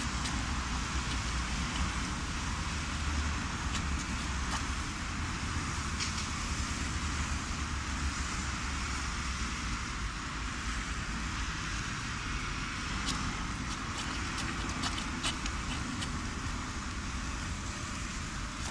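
Steady street traffic noise from cars passing on a wet road: a constant hiss with a low rumble, and a few faint ticks.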